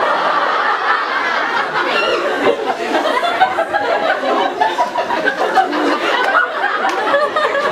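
A large audience of young campers laughing loudly together, many voices overlapping with some chatter mixed in.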